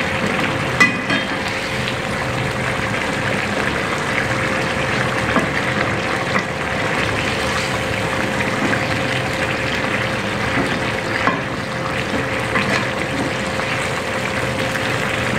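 Chicken karahi bubbling and sizzling in a tomato gravy in a non-stick wok while a spatula stirs it, with a few sharp knocks of the spatula against the pan.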